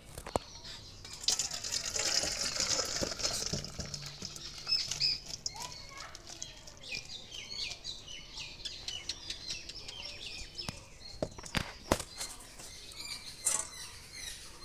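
Curry being tipped and scraped out of a kadai into a large stainless steel bowl: a hiss of scraping and sliding food, a run of short squeaky scrapes of the spatula on metal, and several sharp metal knocks, most of them in the last few seconds.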